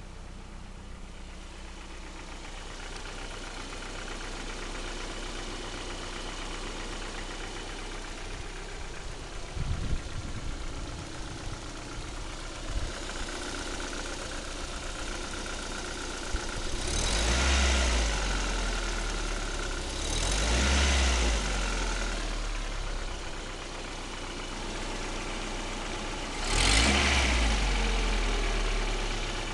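Lada Priora's VAZ-21126 1.6-litre 16-valve engine idling steadily, revved up briefly three times in the second half. The engine has a knock whose cause the owner cannot make out.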